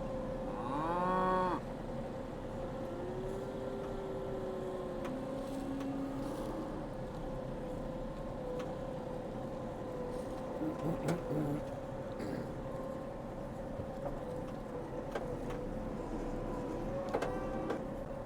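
Highland cattle mooing: one loud call that rises and falls about a second in, a few softer, shorter calls after it, and another call near the end. A steady hum and a few knocks around the middle sit underneath.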